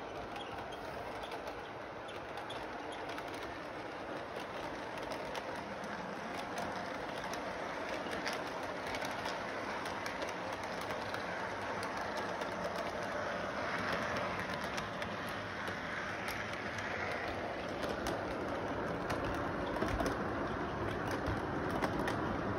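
A toy electric train running on its track: a steady whir and rattle with many light clicks, growing slightly louder as the cars pass close by.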